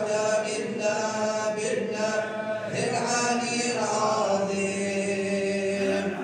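Sufi religious chanting (sama'), sung voices holding long, drawn-out notes that glide from one pitch to the next.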